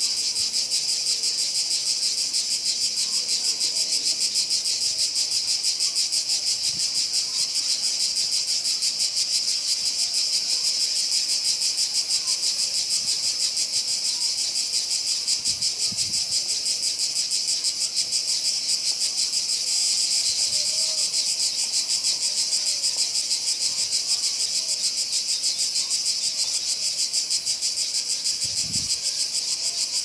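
Dense chorus of summer insects: a continuous shrill, rapidly pulsing buzz that holds steady throughout.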